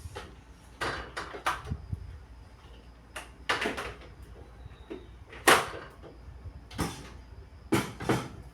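Food and containers being set back onto refrigerator shelves and into its drawers: an irregular string of knocks and clatters, the loudest about five and a half seconds in.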